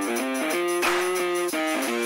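Intro music: an electric guitar playing a melody of quick changing notes.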